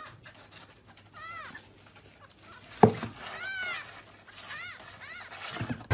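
Orange kitten mewing: several short, high calls that rise and fall in pitch, with one sharp knock nearly three seconds in.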